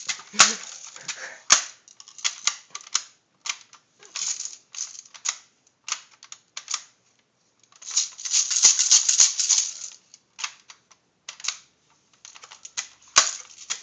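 BB gun being fired over and over: sharp clicks and short runs of rapid snapping, with a longer rattling burst about eight seconds in that lasts some two seconds. It is shooting nothing out, which its users put down to a broken compressor.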